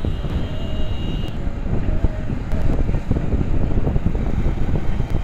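Road traffic noise and low wind rumble while riding on a highway, with a faint high steady tone during the first second or so.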